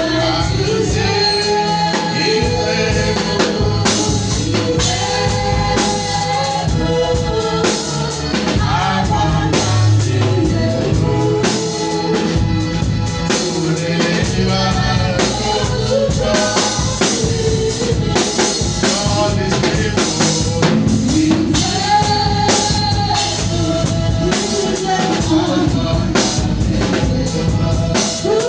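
Gospel praise music with singing over a live drum kit and bass, keeping a steady beat.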